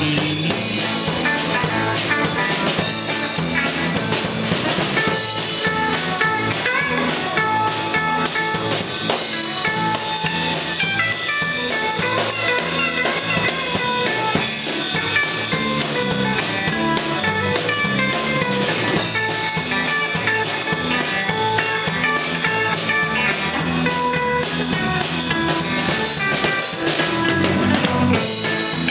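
A band playing a blues number, with drum kit and guitar.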